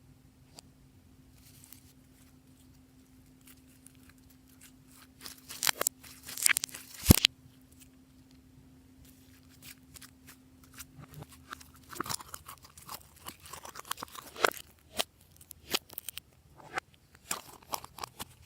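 Glossy slime being handled and mixed: irregular sticky clicks and crackling pops, with a sharp snap about seven seconds in and a denser run of crackling in the second half.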